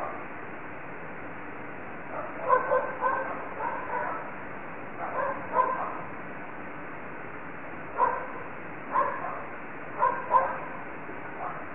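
An animal's short barking calls, about a dozen in irregular groups of two to four, over a steady hiss through a security camera's microphone.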